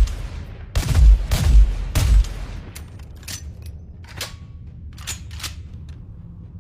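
Fieldmaster HR-10 rifle firing three loud shots in quick succession, about half a second apart, each with a deep boom, followed by a few fainter sharp clicks.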